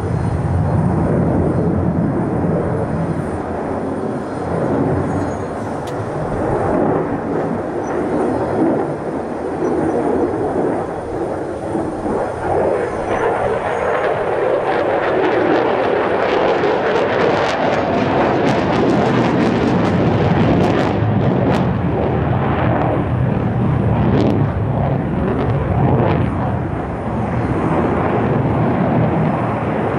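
Jet noise from the Lockheed Martin F-35A Lightning II's single Pratt & Whitney F135 afterburning turbofan during a flying display. It stays loud and shifts in tone as the jet manoeuvres, with a stretch of crackling about halfway through.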